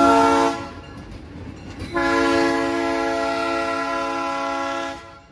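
The horn of ALCO S2 diesel switcher #75 sounding a chord of several notes: a short blast, then a long blast of about three seconds.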